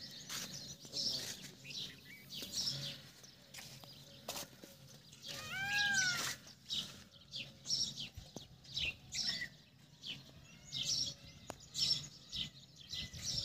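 Small birds chirping on and off, and about six seconds in a single rising-and-falling call like a cat's meow.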